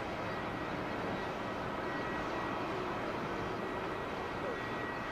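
Steady jet engine noise from a Boeing 747-400 airliner: an even rumble with a faint high whine on top.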